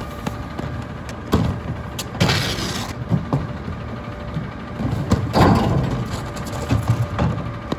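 Plastic trash carts being tipped by hand and banged against the metal container on a garbage truck's front forks: several knocks and thuds, twice with a short clatter of trash spilling out. A steady truck engine idle runs underneath.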